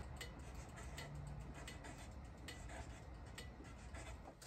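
Faint, scattered light clicks and taps of small items being handled on a wooden table, over a quiet background with a brief low hum about a second in.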